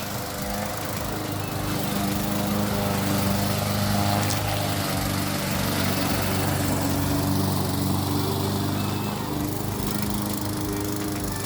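Self-propelled walk-behind lawn mower running steadily, a little louder for most of the middle stretch.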